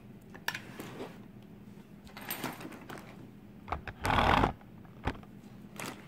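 Handling noises from a metal lock cylinder being taken in hand and moved about on a workbench: a few light clicks and rustles, with a louder half-second rustle about four seconds in.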